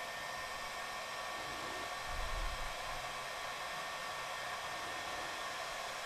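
Electric heat gun blowing steadily at a heat-shrink crimp terminal, shrinking its sleeve: a steady airy hiss with a faint high whine.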